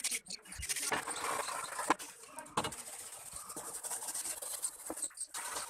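Scraping and rubbing from hand work on old fan parts, with a few sharp clicks.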